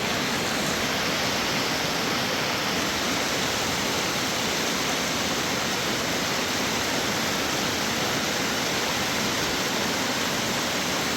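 Steady rushing of water, an even hiss-like noise that never breaks.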